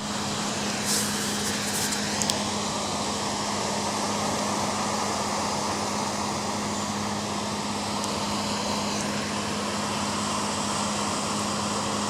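Ocean surf as a continuous, even roar with no distinct single wave crashes, over a steady low hum, with a few brief sharp clicks in the first two seconds or so.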